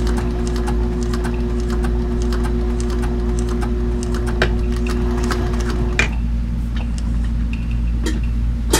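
Industrial triple-feed walking-foot sewing machine stitching thick leather: quick, regular ticking of the needle and feed mechanism over a steady motor hum. About six seconds in, the stitching stops with a click and only the motor hum and a few faint clicks remain.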